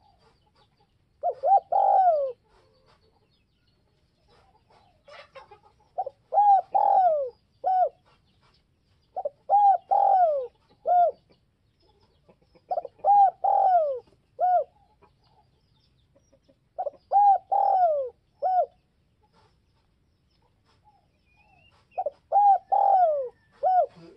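Spotted dove cooing its song: six phrases of several short coos each, a few seconds apart, each phrase ending in a short separate note.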